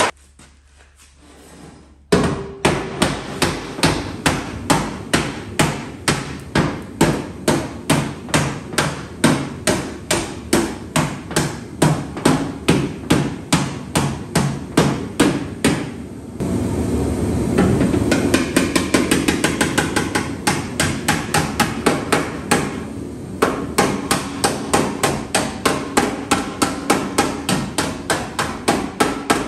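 Hammer striking the sheet-metal panel of a 1986 Ford F-150 cab in quick, even blows, about three to four a second, starting about two seconds in. For several seconds in the middle the blows run closer together into a denser clatter.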